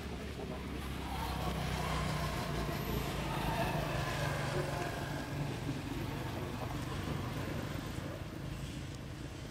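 A motor vehicle engine running steadily, growing louder over the first couple of seconds and easing off near the end, with indistinct voices.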